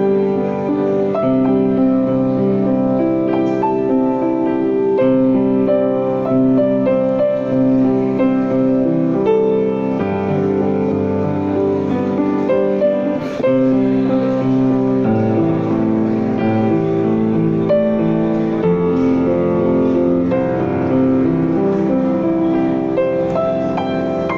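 Piano music: a slow melody over sustained chords, with notes changing about once a second.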